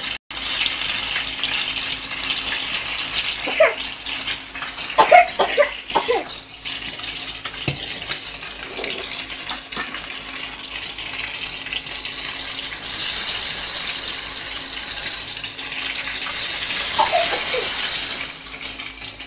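Hot oil sizzling around a fish steak shallow-frying on a flat iron tawa, a steady crackling hiss that swells louder twice in the second half as a spoon works at the fish.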